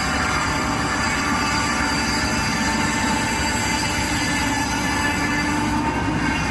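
Heavy tracked forestry machine running: a steady mechanical rumble with several high, steady whining tones and hiss over it.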